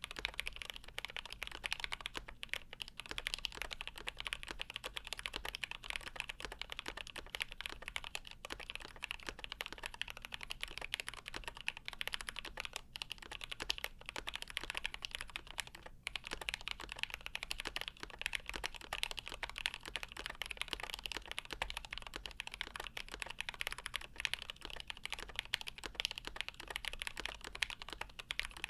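Fast, continuous typing on a GMMK Pro mechanical keyboard with lubed milky Gateron Yellow linear switches in an aluminum plate and Geekark keycaps: a dense stream of key clacks, with a brief pause about halfway through.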